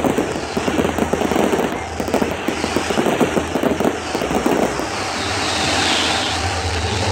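Fireworks going off in a rapid, dense barrage of pops and crackles, thinning into a more even hiss near the end.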